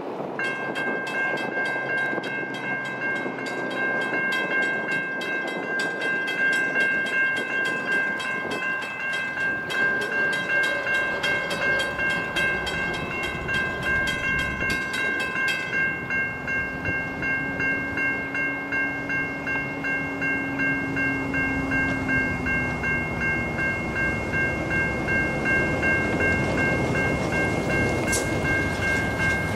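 Level crossing warning bells starting up: a Safetran Type 3 electronic bell ringing a steady repeating high ding, together with a Western Cullen Hayes mechanical bell striking rapidly. The mechanical bell stops about halfway through, once the boom gates are down, while the electronic bell rings on.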